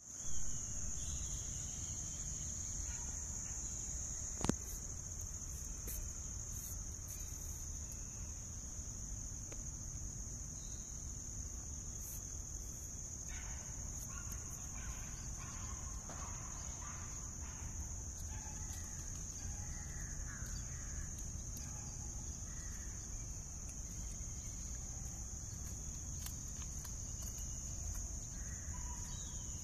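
Insects droning steadily on one high pitch over a low outdoor rumble. There is a single sharp click about four and a half seconds in, and faint bird calls partway through.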